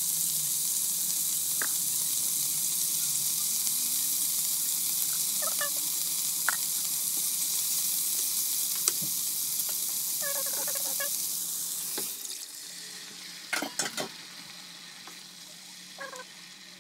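Chopped onion, capsicum, carrot and pineapple sizzling in oil in a frying pan, with the taps and scrapes of a wooden spatula stirring them. About twelve seconds in, the sizzle dies down as the sauce liquid goes into the pan.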